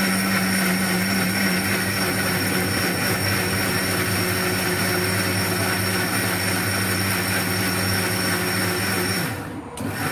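Countertop blender motor running steadily at speed, blending fruit with water. It switches off about nine seconds in.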